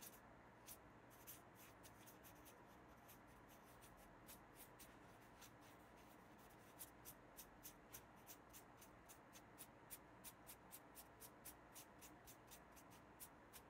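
Faint strokes of a fine paintbrush on watercolour paper, each stroke a short light scratch. The strokes come thicker in the second half, about two or three a second, as quick flicks for the whiskers.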